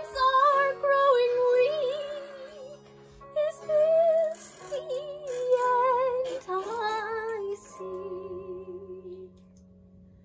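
A solo voice singing a slow, drawn-out melody over steady held accompaniment chords. It ends on a long wavering note that fades out about nine seconds in, leaving only faint accompaniment.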